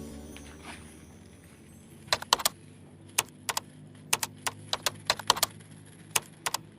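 Background music fading out, followed by a run of sharp, irregular clicks or taps, about fifteen of them over the last few seconds.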